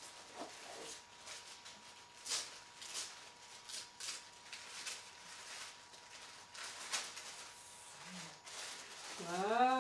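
Tissue paper rustling and crinkling in irregular bursts as it is unfolded by hand inside a cardboard cake box. A woman's voice makes a short drawn-out sound near the end.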